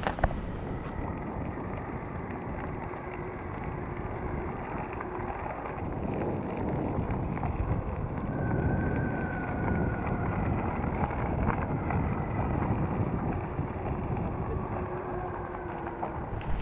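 All-terrain tyres of an electric longboard rolling over a gravel road with a steady crunching rumble, and wind buffeting the microphone. A faint electric-motor whine comes and goes.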